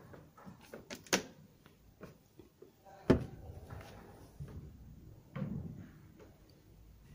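Fold-out writing tablet of an auditorium chair being drawn out of its armrest slot and swung open, its hinge and tabletop clicking and knocking: a sharp click about a second in, the loudest clack about three seconds in, and a duller knock later.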